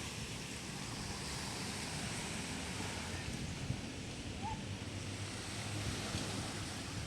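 Sea waves washing onto a sandy beach, a steady surf rush mixed with wind on the microphone.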